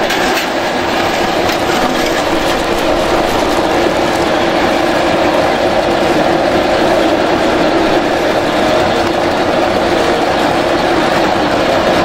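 AGR-CH250 multipurpose chopper running at a loud, steady pace, a continuous mechanical rattle and whir from its cutting blades as bitter melons and other vegetables are fed in and chopped.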